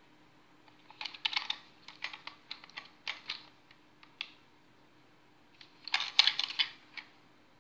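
Chain Fong 'Special Machine Pointer' plastic toy race car being handled and turned over in the hand, giving quick bursts of small plastic clicks and rattles: a run of them about a second in lasting some three seconds, and a denser burst around six seconds.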